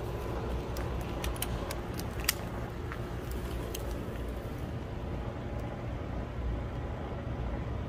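Steady low mechanical hum, as from a motor running, with a few light clicks and taps in the first few seconds.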